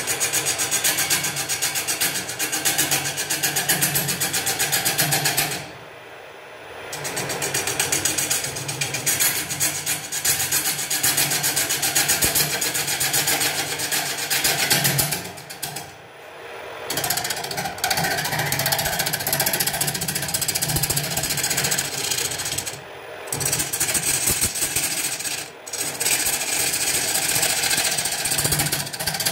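Gouge cutting a spinning Albizia lebbeck blank on a wood lathe, a steady scraping and shaving noise with a fast rhythmic pulse. The cut breaks off four times for a moment as the tool is eased off the wood, then resumes.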